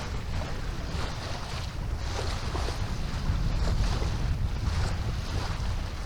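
Wind buffeting the microphone aboard a sailboat under sail, with water swishing along the hull in surges that come and go every second or so.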